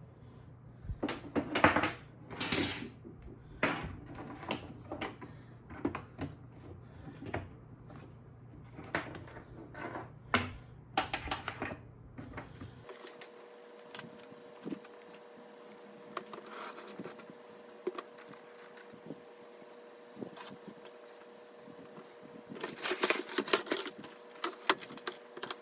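Clicks and knocks of cables being plugged into an HPE ProLiant DL360 Gen10 rack server: a run of sharp clicks over the first dozen seconds, then a dense cluster of clicks near the end. A faint steady whine comes in about halfway.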